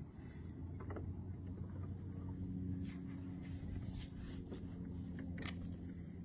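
Water lapping and dripping around a kayak hull, with a few short light knocks or splashes in the second half, over a low steady hum.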